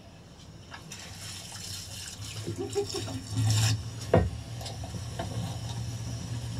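Flour poured from a large steel bowl onto a steel table, a soft rushing pour, with one sharp knock about four seconds in.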